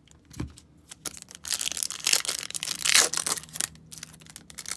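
Foil Pokémon card booster pack wrapper crinkling and tearing open by hand, a dense crackle that starts about a second and a half in and dies down just before the end.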